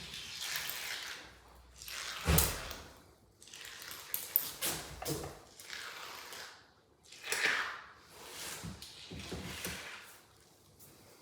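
MDF skirting boards being handled and fitted against a wall: irregular knocks and short scraping sweeps, with one heavier thud about two seconds in.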